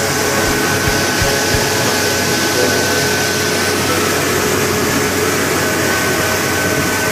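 Mini rice mill machinery running at full operation: a loud, even mechanical din with a steady hum and a thin high whine over it, as paddy pours through the machines' chutes and hoppers.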